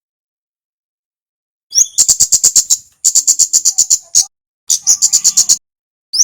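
Kemade (kemlade merah) songbird singing: starting about two seconds in, four bursts of rapid high-pitched ticking notes, about ten a second, each burst opened by a short rising note.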